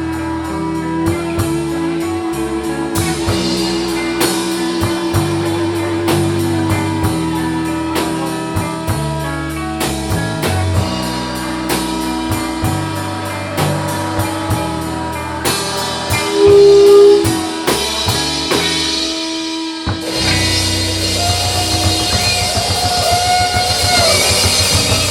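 Live rock band playing an instrumental passage with drum kit and electric guitar, a steady beat under a sustained guitar note, the texture changing about twenty seconds in toward the song's close.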